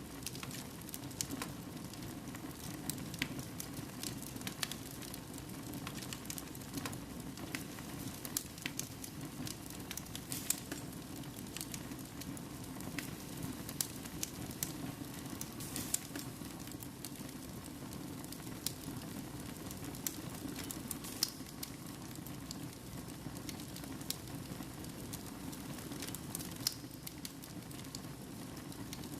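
Wood fire burning in a fireplace: a steady low rush of flames with firewood crackling in irregular sharp snaps, a few louder pops among them.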